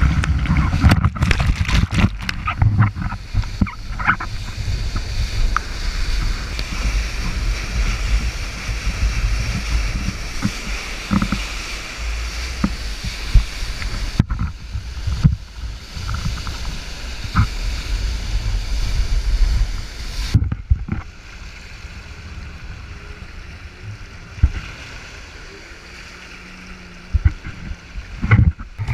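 Churning river whitewater rushing and splashing close against a pole-mounted action camera, with a heavy low rumble of water buffeting the camera. The sound drops to a quieter rush about two-thirds of the way through.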